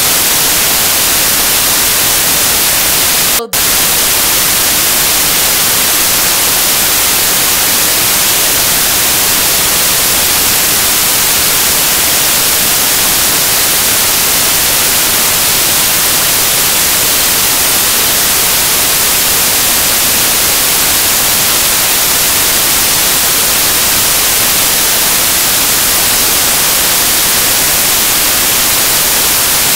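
Loud, steady white-noise static, the hiss of a corrupted or dropped audio signal, cutting out for an instant about three and a half seconds in.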